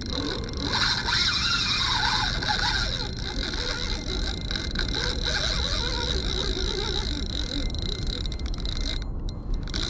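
Spinning reel being cranked under the load of a hooked sturgeon, with rumbling handling noise on the rod. A steady high-pitched chorus, typical of frogs, runs behind it throughout.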